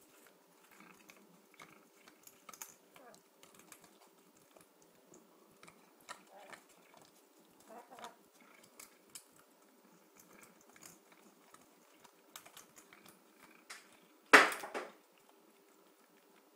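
Cat crunching and chewing tortilla chips: scattered small, soft crunches and clicks, with one much louder, brief crunching noise late on. A faint steady hum lies underneath.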